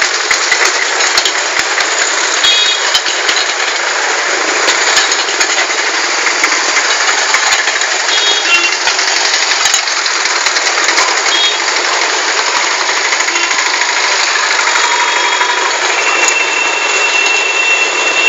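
Busy street traffic: vehicle engines of nearby trucks and auto-rickshaws idling and running with a loud rattling clatter. Short horn beeps come a few times, and a steady high tone sounds near the end.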